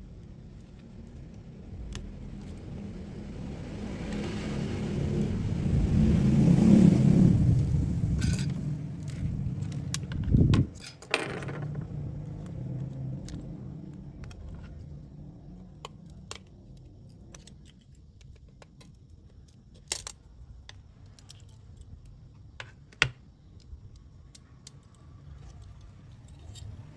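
Small metallic clicks and taps of a precision screwdriver and tweezers working on a smartphone's screws, connectors and internal parts as it is taken apart, with a heavier knock about ten and a half seconds in. A low rumble swells and fades between about four and nine seconds in.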